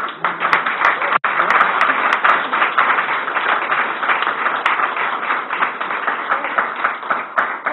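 Audience applauding: dense, loud clapping that starts at once and keeps up steadily, with a brief audio dropout about a second in.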